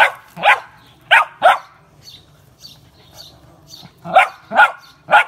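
Puppy barking in short, sharp, high barks: four in quick succession, a pause, then three more.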